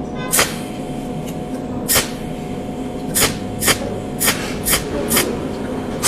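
A series of short, sharp taps or clicks, seven of them, mostly about half a second apart after a slower start, over a steady mechanical hum.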